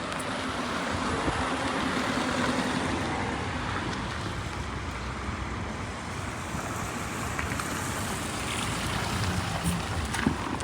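Rain falling with the hiss of a car passing on the wet street, swelling a second or two in and then easing to a steady wash.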